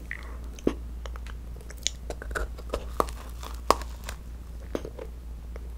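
Close-miked bites and chewing of a thick-filled macaron (ttungcarong), the crisp shell giving sharp little crunches, the loudest about three and a half seconds in. A steady low hum runs underneath.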